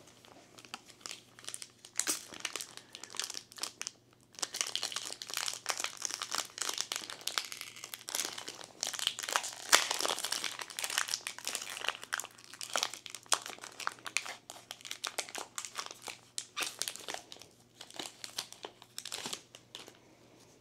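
A foil trading-card booster pack wrapper crinkling and crackling as hands work it and tear it open, with the busiest, loudest crackling in the middle.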